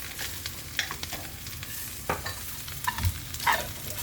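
Doner kebab meat sizzling as it fries in a pan, with a utensil scraping and knocking several times as it is stirred.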